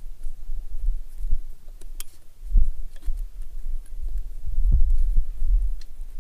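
Scattered light clicks and taps of hands and tools working on a chainsaw's bar and chain while its tension is adjusted, over a low, uneven rumble.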